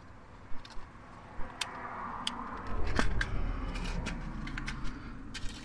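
Light handling noise with scattered sharp clicks and ticks: sewing pins being handled and worked into the back of a wiring connector for back-probing.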